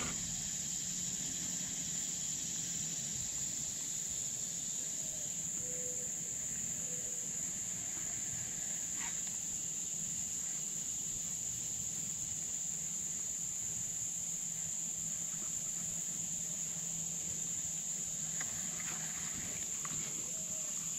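Steady, high-pitched drone of insects calling without pause, with a few faint short low notes now and then.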